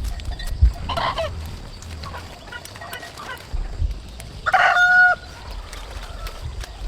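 Chickens calling on a farm: a short call about a second in, then a longer, steady-pitched call past the middle, over a low rumble.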